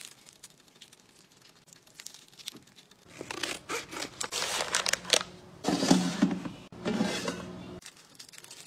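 Scissors snipping open a plastic food packet, with the wrapper crinkling and rustling. It starts about three seconds in, and the loudest crinkling comes near the end.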